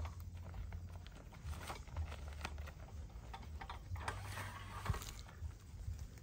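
A large sack rustling and crinkling as hands rummage inside it and pull an object out, with irregular clicks and light knocks.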